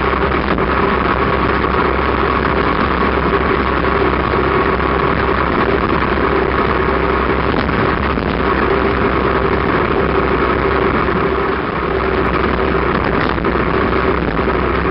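Motorcycle engine running steadily at cruising speed, a constant hum under heavy wind rush on the microphone.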